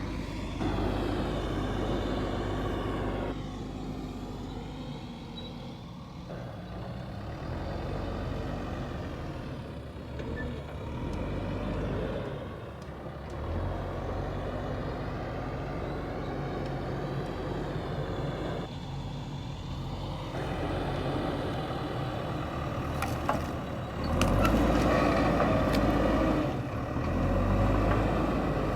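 JCB backhoe loader's diesel engine running under work, swelling and easing in level as it is throttled up and down. It grows louder about 24 seconds in, just after a few sharp clanks.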